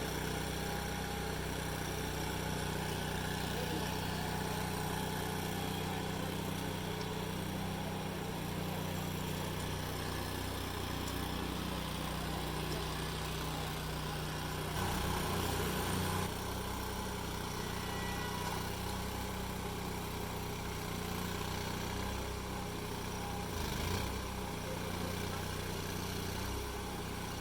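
Small engine running steadily, a low even hum, briefly a little louder around fifteen seconds in, with a short knock near the end.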